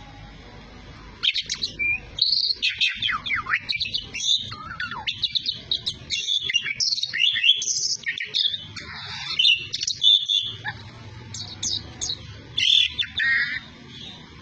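Asian pied starling singing a long, varied song of rapid whistles and chattering notes that glide up and down. It begins about a second in, with a few brief pauses, and stops shortly before the end.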